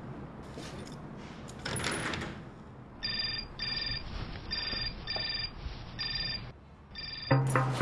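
Mobile phone ringing: an electronic ringtone in short repeated pulses, about seven of them, starting about three seconds in and stopping just before the end. A brief rattle about two seconds in.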